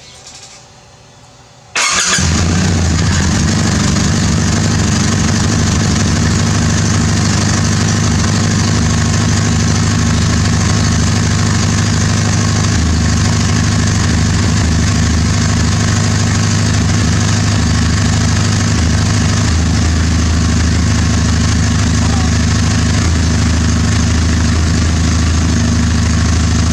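Kawasaki W800 air-cooled parallel-twin engine starting about two seconds in, then running at a steady idle on its freshly changed oil.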